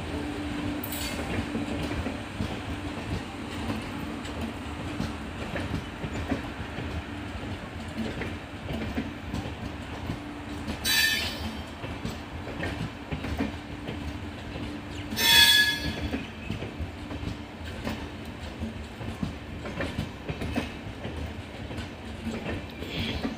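LHB express coaches rolling past slowly after departure, wheels rumbling and clattering on the rails, with a steady hum through the first half. Twice, about halfway through and again a few seconds later, the wheels give a short high-pitched squeal, the second one the loudest.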